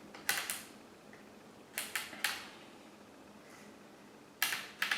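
Depth adjustment knob of a Performax 3-1/4-inch electric hand planer being turned to set the cutting depth, giving short groups of sharp clicks: two near the start, three around the middle and three near the end.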